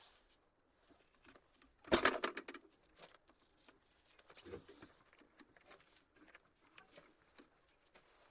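A brief loud rattling clatter about two seconds in, followed by scattered light taps and scrapes of objects being handled on a work surface.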